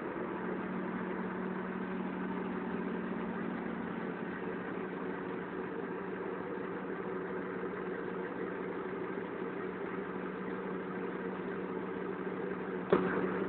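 Steady hum of an engine-driven pump running while liquid DAM fertilizer is drawn out of a storage tank through a suction hose, with one sharp knock just before the end.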